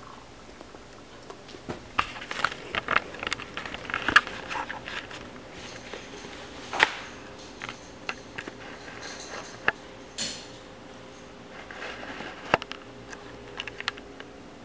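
Camera handling noise: irregular clicks, taps and rustles as the camera is carried and moved about, with a brief rustle about ten seconds in, over a faint steady hum.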